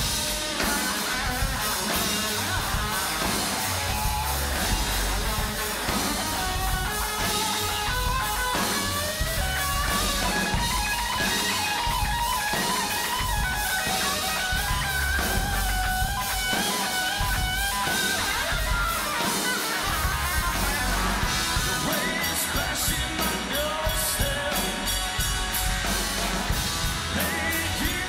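Live rock band playing an instrumental passage: drum kit and guitars under a lead guitar melody that bends in pitch, with cymbals coming through more clearly in the last several seconds.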